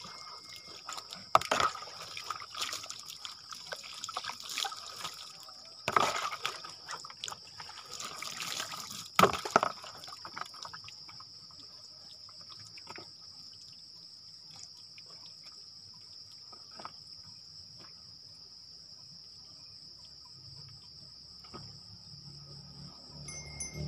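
Water poured from a plastic dipper over a bather, splashing onto the ground three times in heavy pours over the first ten seconds, then stopping. Insects buzz steadily throughout.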